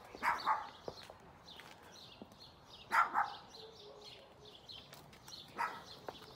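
A dog barking: two quick barks at the start, two more about three seconds in, and a single bark near the end.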